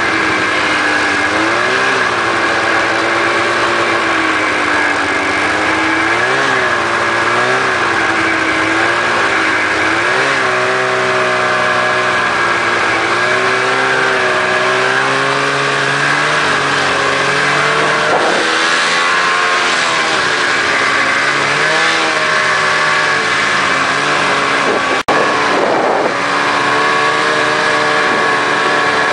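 Snowmobile engine running at speed, its pitch rising and falling as the throttle is opened and eased, with a steady high whine over it. About 25 seconds in there is a brief sharp click where the sound dips for an instant.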